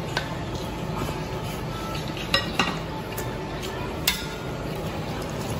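Utensils clinking against porcelain bowls at a meal: a few sharp clinks, two close together about two and a half seconds in and another near four seconds, over steady low background noise.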